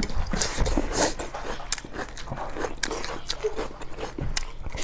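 Close-up eating sounds: people biting and chewing food, with irregular wet smacks and short crunchy clicks.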